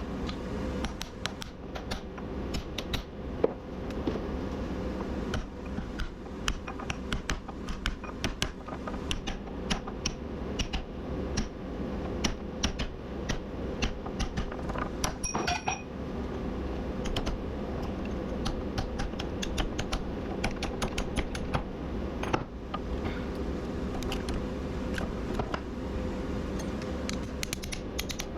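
Many light, irregular metallic clicks and clinks as copper winding pieces are pulled from an electric motor stator and handled with hand tools, over a steady background hum.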